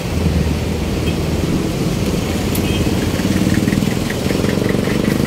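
Street traffic: vehicle engines running close by, a steady low rumble. A faint rapid ticking joins about three seconds in.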